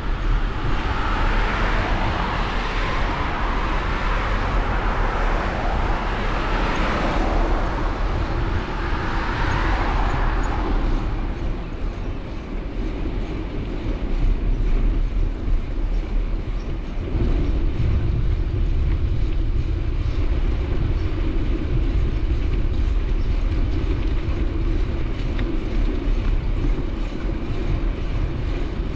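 Steady vehicle travel noise: a hiss that swells and fades a few times over the first ten seconds, then a deeper low rumble setting in about seventeen seconds in.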